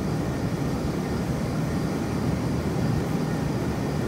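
Large industrial drying fans running steadily, a constant low rush of moving air with no change in level, keeping air flowing over stacked crates of drying grapes.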